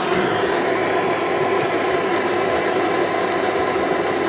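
Handheld gas torch burning with a steady hiss while heating a metal rod for bending.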